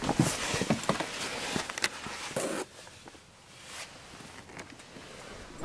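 Rustling clothing and seat and small bumps as a person climbs into a car's back seat. Near the end the rear door of the 2013 Kia Soul is pulled shut with one loud thud.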